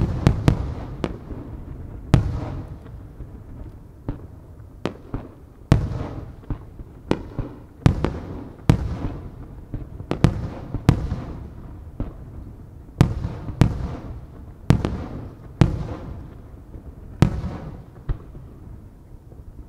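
Aerial firework shells bursting one after another, sharp booms about one a second, each followed by a rolling echo. The bursts thin out near the end.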